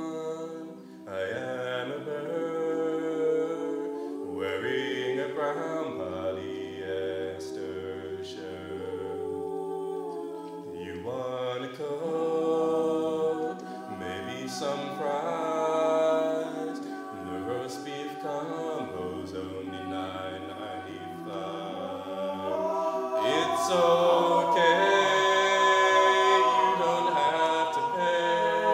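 An a cappella vocal group singing in close harmony, a low bass voice holding notes under shifting sustained chords. The singing swells louder near the end.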